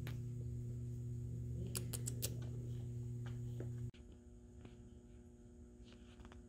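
Steady low electrical hum with a few sharp clicks about two seconds in. It cuts off abruptly at about four seconds to a quieter room hum with faint scattered ticks.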